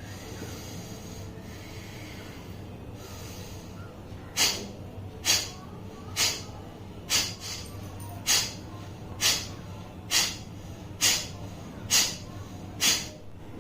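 Kapalbhati breathing: a slow, even series of ten short, forceful exhalations through the nose, about one a second, starting about four seconds in.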